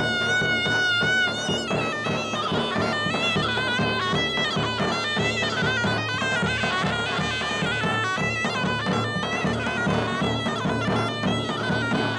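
Zurna, the shrill Turkish double-reed shawm, playing a folk dance tune to the beat of a davul bass drum. It holds one long wavering note at the start, then moves into quick ornamented runs.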